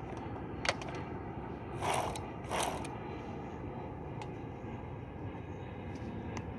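Husqvarna 365 chainsaw being readied for starting, its engine not yet running: a sharp click about a second in, then two short rasping noises under a second apart.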